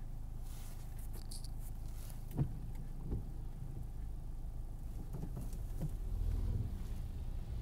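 Car running at low speed, heard from inside the cabin: a steady low engine and road hum, with a sharp knock about two and a half seconds in and smaller knocks a little later; the low hum swells slightly near the end.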